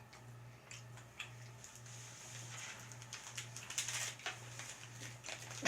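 Faint rustling and scattered light clicks of small handling noises, over a steady low hum.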